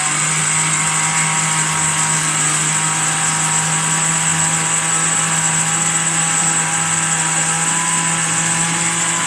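Electric countertop blender running steadily at one speed, its motor humming evenly as it blends a jug of juice.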